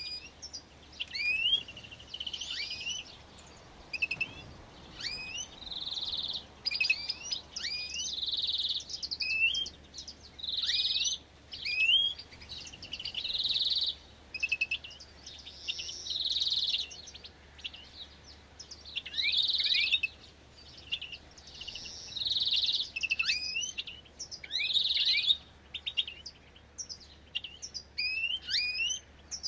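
Small finches calling in an aviary: many quick chirps that slide down in pitch, with a longer, harsher call repeated every two to three seconds.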